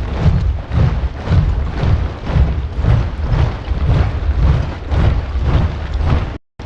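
A large body of soldiers marching in step, their boots striking the ground together with a heavy thud about twice a second. The sound cuts out for a moment near the end, then resumes.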